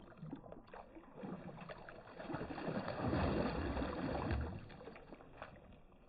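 Shallow water splashing and sloshing as a released pike kicks free of a hand and swims off, loudest from about two to four and a half seconds in.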